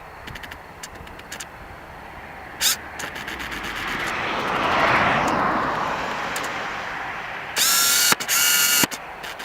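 Boeing 737-400 jet airliner with CFM56 turbofans passing during its landing, its engine noise swelling to a peak about halfway through and then fading. Bursts of rapid mechanical clicking and whirring come and go, with a loud whirring burst about eight seconds in.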